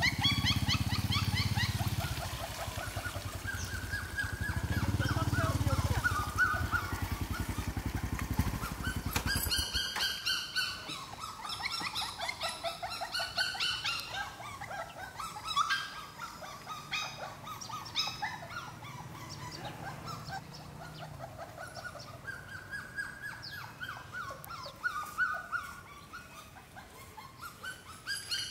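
Puppies whimpering and whining in repeated short, high-pitched cries. A low rumble runs under the first ten seconds or so and stops abruptly.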